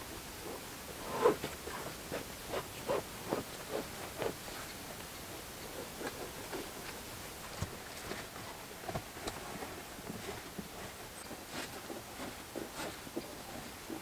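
Soft, irregular crunches, knocks and rustles of someone moving about and handling heavy tarp door curtains. A quick run of them comes in the first few seconds, then they thin out.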